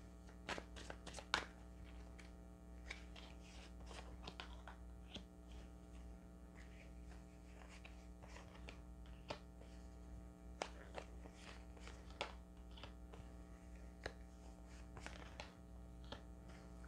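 Tarot cards being shuffled and laid out on a cloth-covered table: faint, irregular flicks and taps, over a steady low hum.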